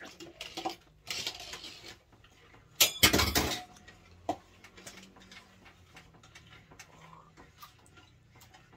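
Objects being handled and set down on a table: a brief rustle about a second in, then a loud clatter and knock about three seconds in, followed by a few light clinks.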